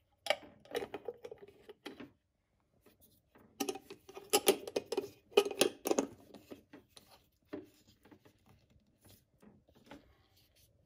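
Glass jar with a white screw lid being handled on a glass-top stove: the lid twisted and the jar scraping and clinking on the glass. There are two busy runs of scrapes and clicks, then scattered light clicks.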